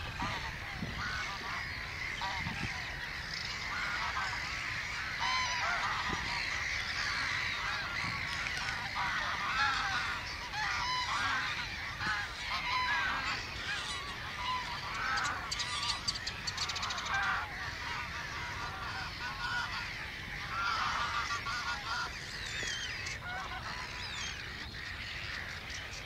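Dense chorus of many waterbirds calling, with short calls overlapping continuously and no let-up.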